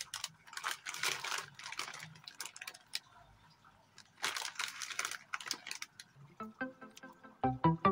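Plastic instant-noodle packet crinkling as it is handled and turned over in the hands, in two spells. Near the end, background music with short piano-like notes begins.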